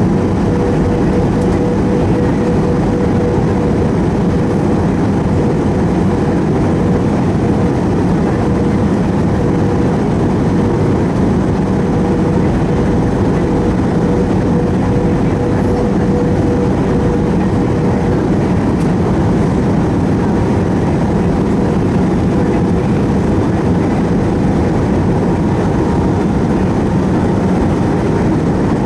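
Steady cabin noise inside an Airbus A320 airliner: jet engine and airflow rumble, with a faint steady hum that fades about two-thirds of the way through.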